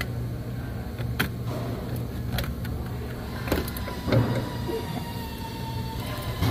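Scattered clicks and light knocks of metal and hose parts being handled by hand in a diesel truck's engine bay during a lift pump removal, over a steady low hum.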